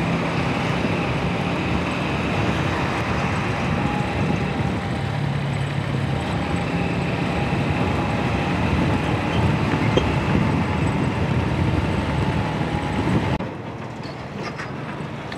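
Honda CG125 single-cylinder four-stroke motorcycle engine running at riding speed, mixed with steady wind and road noise on the helmet-mounted microphone. The level drops noticeably near the end.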